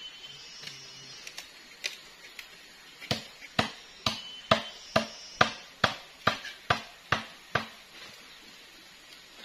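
A run of about a dozen sharp woody knocks, roughly two a second, starting about three seconds in: a blade or tool striking wood or bamboo.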